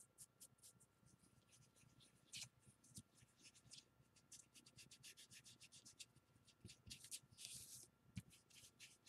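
Faint, quick scratchy strokes of a round ink-blending tool dabbed and rubbed across an old paper book page, working distress ink into it; a sharper tap about two and a half seconds in and another near the end.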